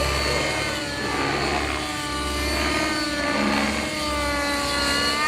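Radio-controlled helicopter flying aerobatics, the pitch of its motor and rotor rising and falling as it manoeuvres.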